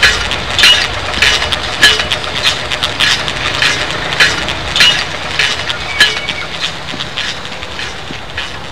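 A steady rhythm of sharp, crisp clicks with a short ringing edge, about one every 0.6 seconds, over a low steady hum, growing a little quieter toward the end.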